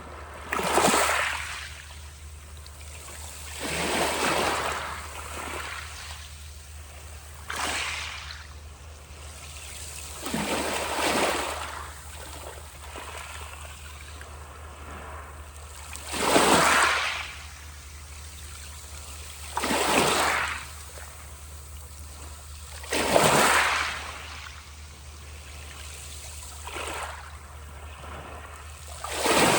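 Sea waves breaking one after another, each a rush of surf lasting a second or two, every three to four seconds over a steady low rumble.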